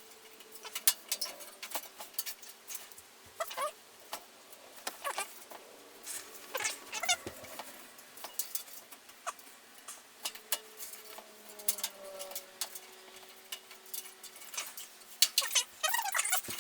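Thin sheet-metal I/O shield being worked into the rear opening of a PC case: irregular clicks, taps and scrapes of metal on metal, bunched in a flurry about halfway through and again near the end, as it fails to seat on one side.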